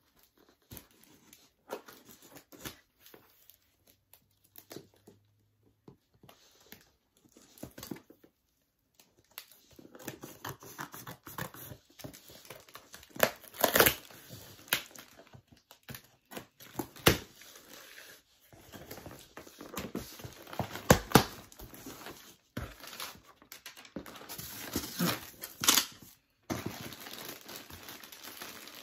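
Scissors snipping and slitting the packing tape on a cardboard box, a scatter of short clicks, then cardboard flaps pulled open and packaging rustling, crinkling and tearing, with several sharp rips.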